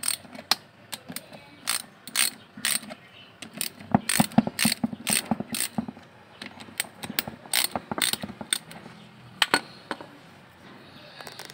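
Ratchet wrench clicking in short, irregular runs as bolts are turned, with a quick burst of ticks about four seconds in.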